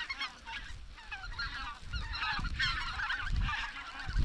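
A flock of snow geese calling overhead, many high, yelping calls overlapping in a continuous chatter. Low gusts of wind buffet the microphone now and then underneath.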